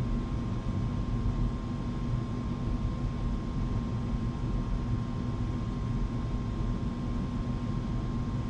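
Furnace running: a steady hum and rush of air with a faint constant tone, unchanging throughout.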